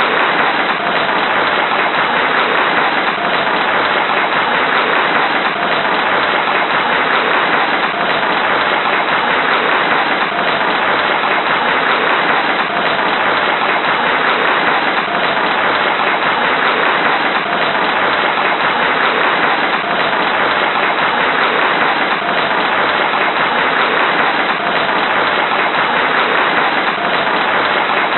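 Large crowd applauding: dense, steady clapping that holds at one level without letting up.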